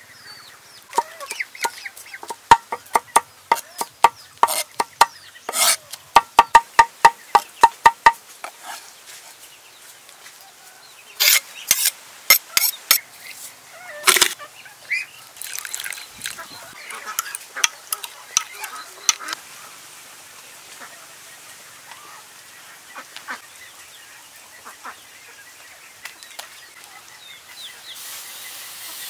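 Cleaver chopping fast on a wooden cutting board, a quick run of sharp knocks in the first several seconds, then a few more loud knocks and clinks about halfway through. Chickens call in the background.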